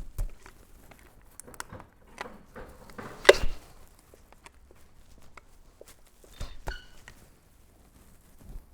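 Scattered metal clicks and knocks of hand tools working on a connecting-rod cap with a seized, spun bearing. There is one sharp knock about three seconds in, and a short metallic ring near the end.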